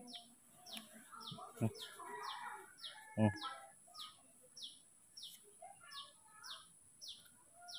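A bird repeating a short, high chirp that falls in pitch, about two or three times a second, steadily throughout. A brief soft thump sounds about three seconds in.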